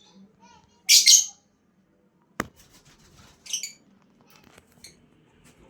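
Lovebird giving shrill, squawking calls: a loud burst about a second in and another about three and a half seconds in, with fainter chirps between. A single sharp click comes midway.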